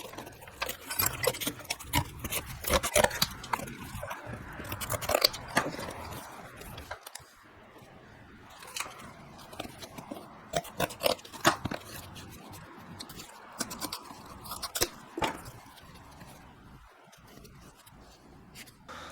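Irregular clinks, knocks and short scrapes of steel plate and hand tools being handled and set down.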